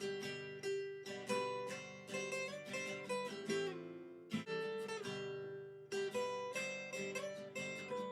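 Background music: a plucked acoustic guitar playing a melody of quick picked notes with occasional strums.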